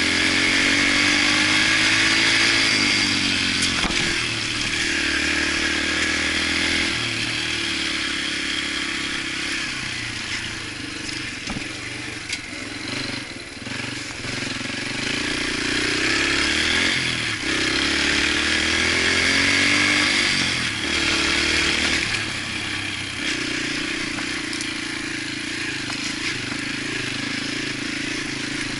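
Yamaha TTR125's single-cylinder four-stroke engine running under load on a trail ride, its pitch climbing and falling several times, then holding steadier near the end.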